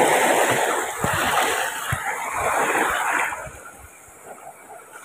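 Shallow seawater splashing and sloshing around a small boat and a fishing net. It is loud for the first three seconds or so, then dies down near the end.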